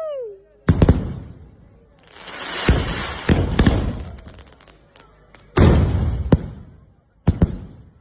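Multi-shot sky-shot firework cake firing: a string of loud bangs, some in quick pairs, each aerial shell burst trailing off in a crackling rumble.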